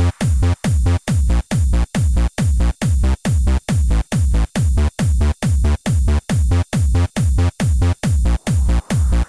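Trance dance music driven by a steady four-on-the-floor kick drum, about two and a half beats a second, each kick dropping in pitch, with the rest of the mix pumping down between beats.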